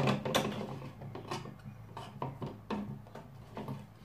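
Irregular plastic clicks and knocks from a Tupperware Profi Chef Mahlwerk hand-crank drum slicer, its slicing drum being worked and cleared of the last cucumber slices with a pot scraper.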